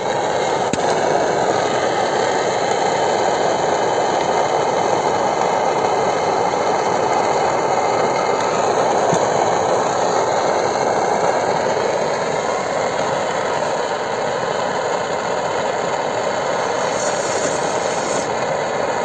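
Optimus Polaris camping stove burning at full flame, a steady even rush, heating a pot to melt snow for coffee water.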